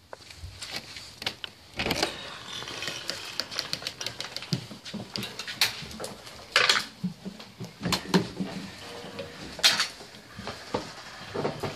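Irregular clicks, knocks and scuffs of a house door being handled and of a person and two dogs walking in, a few louder knocks among them.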